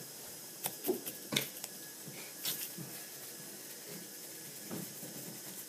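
Quiet room tone broken by a few light clicks and taps, about a second in and again around two and a half seconds: makeup being handled, a blush brush and its compact.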